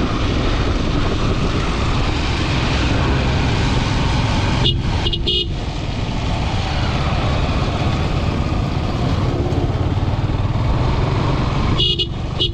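Motorcycle riding at low speed on a rough, potholed road, a steady rush of engine and wind noise. Short vehicle-horn toots sound, two or three quick beeps about five seconds in and another near the end.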